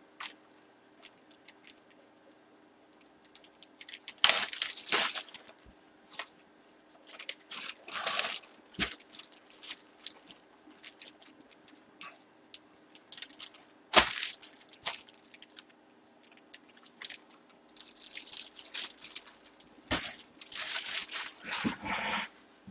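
Hands handling a football jersey and sports-card packages on a tabletop: irregular rustling with a few sharp knocks, the loudest about 14 seconds in.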